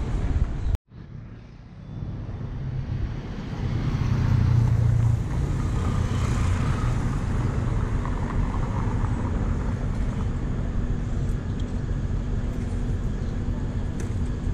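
City street traffic at an intersection: cars passing, with one vehicle's engine passing louder about four seconds in. The sound cuts out briefly under a second in.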